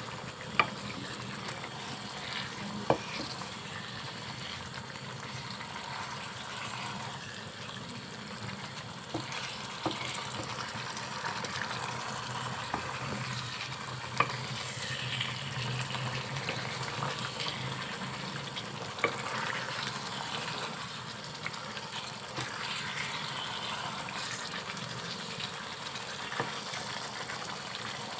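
Chicken curry with tomatoes and masala sizzling in a wok while a wooden spatula stirs and scrapes it, with a few sharp knocks of the spatula against the pan. The masala is being bhuna-fried over medium heat as the tomatoes cook down.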